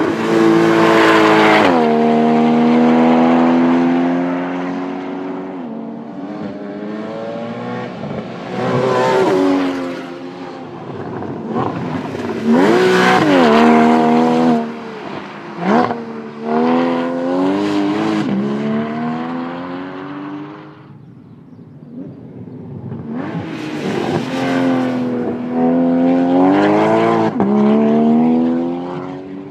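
Porsche Boxster GTS 3.4-litre flat-six engine driven hard on a track, its pitch climbing under full throttle and dropping as it lifts off, several times over.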